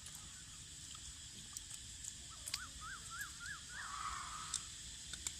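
Cicadas droning steadily at a high pitch, with a bird calling five quick rising-and-falling notes around the middle and a few faint clicks.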